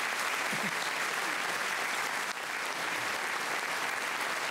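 Large seated audience applauding steadily, a dense even clatter of many hands.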